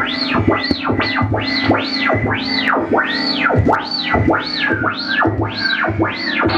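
Custom analog synthesizer playing rapid up-and-down pitch sweeps, about two a second, each rising high and falling back, over a steady low drone and a pulsing bass hum.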